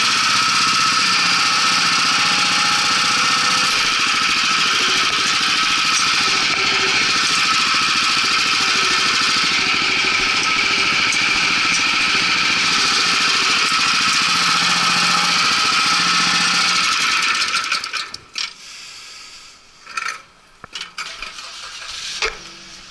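Small single-cylinder petrol engine of a walk-behind cultivator running steadily as it warms up, then cutting out about eighteen seconds in. A few knocks and clicks follow.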